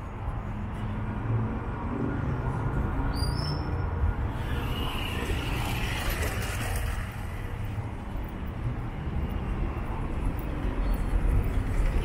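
Street traffic: a steady low rumble of cars, with one vehicle passing about a third of the way in, its noise swelling and then fading.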